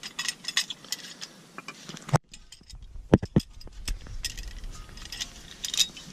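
Metal clinking and rattling of a C-clamp and an old brake pad being handled and set against a brake caliper, with a few sharper knocks a little past the middle.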